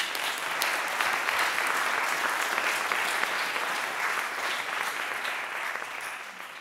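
Audience applauding: many people clapping together, steady and then fading out near the end.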